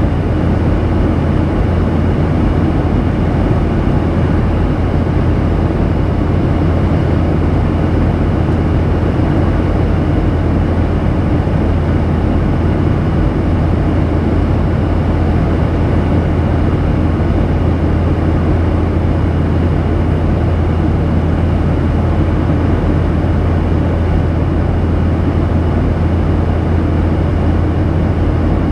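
Steady cabin noise of a Boeing 737-800 in flight, heard from inside the cabin: a constant low hum from its CFM56-7B turbofan engines under a rushing sound of airflow.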